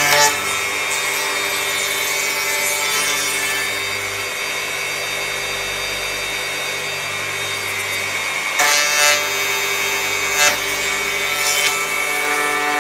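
Electric hand planer running steadily with its motor whine while shaving a wooden board, briefly louder a few times in the last four seconds as the cut bites.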